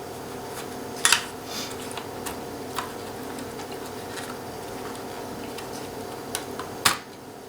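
A few sharp clicks and taps from the parts of an opened laptop being handled while it is taken apart. The loudest come about a second in and again near the end, over a steady background hum.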